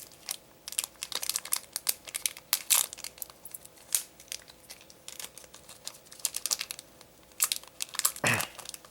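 Digimon Card Game booster pack wrapper crinkling and tearing as it is pulled open by hand along its back seam, in irregular crackles.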